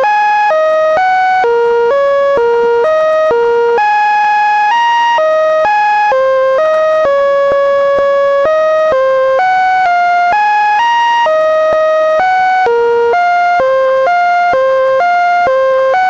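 Computer-generated buzzy tones, a rough melody produced by turning the Linux kernel's data into sound. The pitch steps to a new note two to three times a second, in notes of uneven length.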